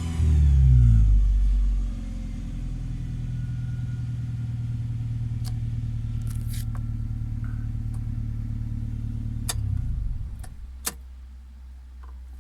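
Toyota Celica's 3S-FE four-cylinder engine revved hard for about two seconds, then running steadily at raised revs before dropping away about ten seconds in, with a couple of clicks near the end. The owner suspects an overheating fault that shows under acceleration in this engine.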